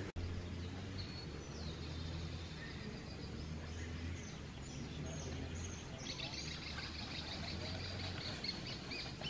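Birds chirping and calling in the trees, a run of short high calls that grows busier about six seconds in, over a steady low hum.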